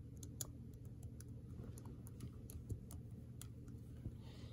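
Faint keystrokes on a Dell laptop keyboard, typing a short phrase in irregular, scattered clicks.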